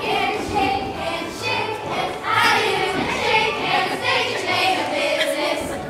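Children's voices singing a song together, holding and sliding between notes.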